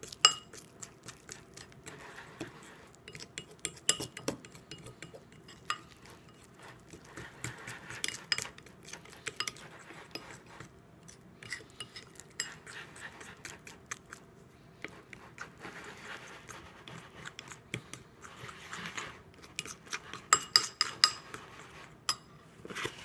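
A utensil stirring a stiff flour, salt, water and oil dough mixture in a bowl, clinking against the bowl with scraping in between, as the mix works into a paste. The sharpest run of clinks comes near the end.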